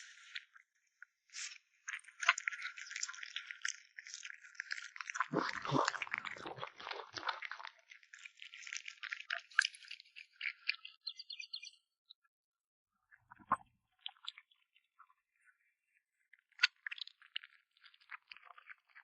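A kitten chewing and crunching meat in close-up, in bursts of crackly bites with short pauses. The bites are heaviest about a third of the way in, and there is a single low knock just past the middle.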